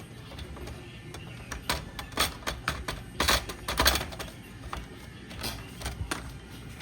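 Irregular clicks and short scrapes of PlayStation 5 console parts and screws being handled during reassembly, clustered around the middle with a few more near the end.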